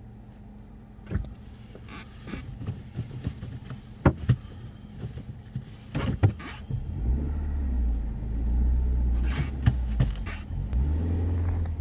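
Car engine and road noise heard from inside the cabin while driving, with scattered clicks and knocks. About seven seconds in, a deeper drone comes up, and its pitch dips and rises again near the end.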